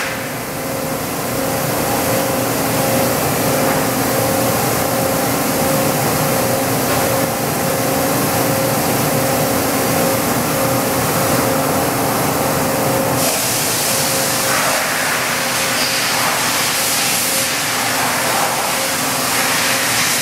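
Toyoda FH60 horizontal machining center running, a steady whine over a hiss; about two-thirds of the way through the whine fades and the hiss changes.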